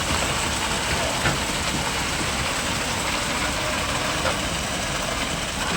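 Steady running of engine-driven construction machinery at a concrete pour, with no change in pace.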